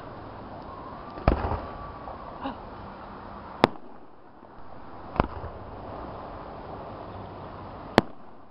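Aerial firework shells bursting overhead with sharp bangs, four times about two to three seconds apart. The first bang is followed by a few smaller cracks and a short low rumble.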